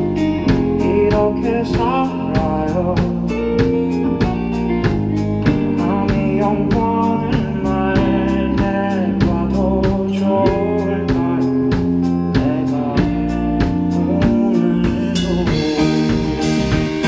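Live rock band playing: drums keeping a steady beat under held guitar and bass chords, with singing, and cymbals growing louder near the end.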